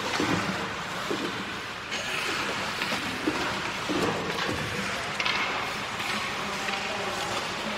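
Ice rink sounds: hockey skate blades scraping and carving on the ice, with a few sharper scrapes about 2 and 5 seconds in, over a steady rumbling hum.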